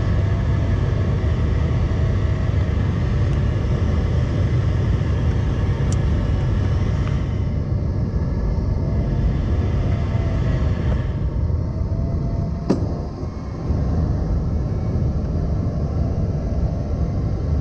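Steady rumble and rush of airflow around the cockpit of a Nimbus 3DT glider climbing on aerotow, with a faint hum from the tow plane's engine ahead. A sharp click about three-quarters of the way through, as the tow rope is released, is followed by a brief dip in the noise.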